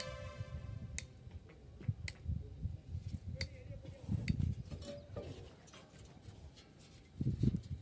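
Sparse sharp taps, one every second or so, over an uneven low rumble, with a brief faint voice-like tone about five seconds in and heavier low thumps near the end.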